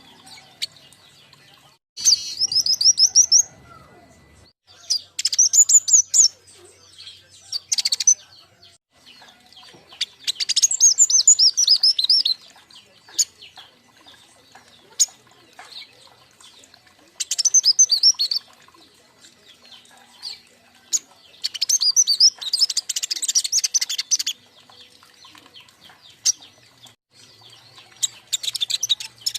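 Young king konin songbirds twittering in repeated bursts of rapid, high chirps, each burst lasting one to three seconds, with short pauses between. This is the chattering call keepers use as a lure and tutor recording.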